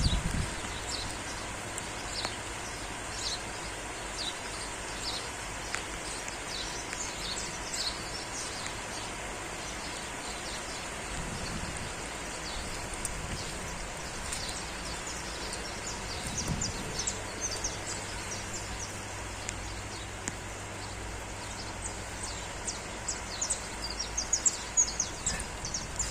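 Steady hiss of light rain with small birds chirping over it, the chirps thickening toward the end.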